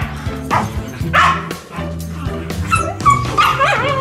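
Shetland sheepdogs barking excitedly at the prospect of a walk: several sharp barks in the first three seconds, then a whining yelp that wavers up and down in pitch near the end.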